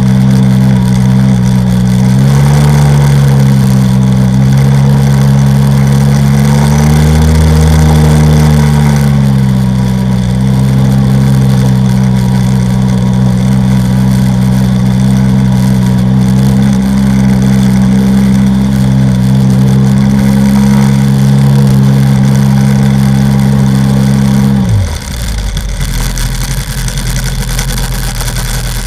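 Sea-Doo XP personal watercraft's two-stroke engine running at a steady cruising speed, its pitch rising briefly twice, then dropping sharply about 25 seconds in as the throttle is released, settling into a low idle.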